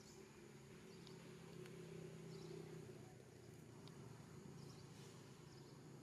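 Near silence: faint outdoor ambience with a low steady hum and a few brief, faint high chirps.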